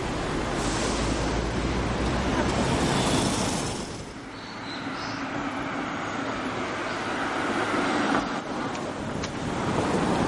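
City road traffic: car engines and tyre noise as vehicles pass. The sound drops off about four seconds in, then swells again as another car approaches.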